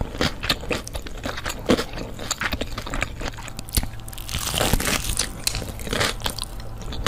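Crispy fried chicken being bitten and chewed close to the microphone: a dense run of sharp crackling crunches.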